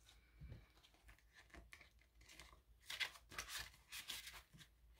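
Faint rustling and crinkling of plastic binder pockets and paper prop bills as the pages of a ring-bound cash envelope binder are handled and flipped, a little louder about three seconds in.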